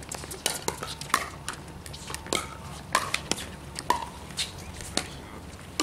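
Pickleball paddles striking a hard plastic pickleball: a string of sharp pocks at irregular intervals, several a second, some loud and some fainter.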